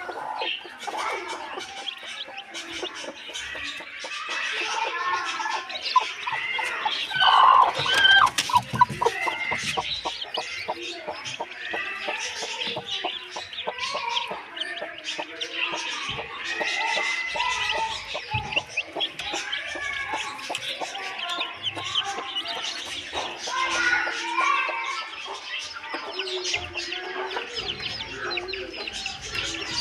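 A broody hen clucking and her newly hatched chicks peeping on a straw nest: many short high calls, one after another, loudest about a quarter of the way in.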